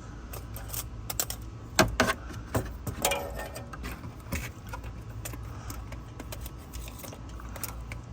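Irregular clicks and light metallic taps from hands working a stuck oil filter loose under the car, with a few louder knocks about two seconds in.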